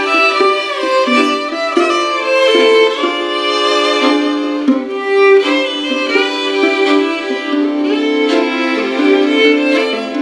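Music: a violin playing a melody alone, note after note with the occasional slide between pitches.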